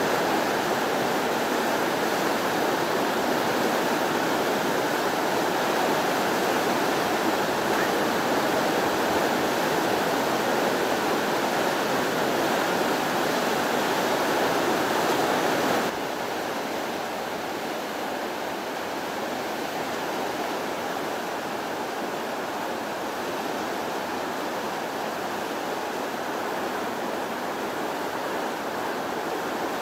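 Swollen brown floodwater rushing through a river channel in a steady roar. It drops suddenly to a quieter level about halfway through.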